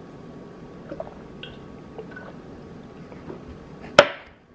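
Faint gulps of someone drinking from a glass, then a drinking glass set down sharply on a stone countertop about four seconds in, a single loud clack.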